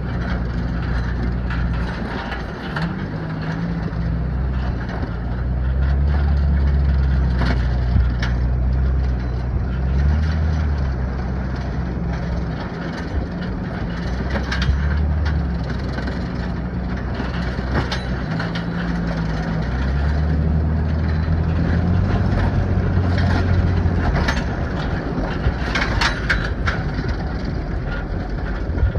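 Truck engine running under load off-road, its pitch stepping up and down as it drives, over the rush of wind and tyres on sand, with a few scattered sharp clanks.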